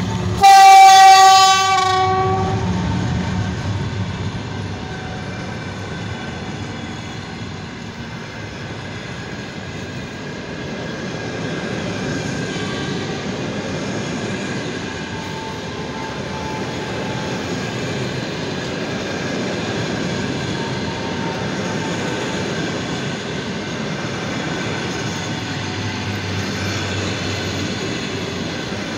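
EP1 electric locomotive's typhon air horn sounding one loud blast of about a second and a half, starting about half a second in. It is followed by the steady noise of the passenger coaches passing on the rails.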